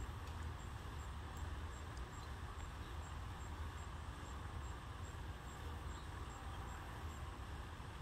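Steady outdoor background noise: a low rumble with a hiss over it. A faint high tick repeats about two or three times a second and stops near the end.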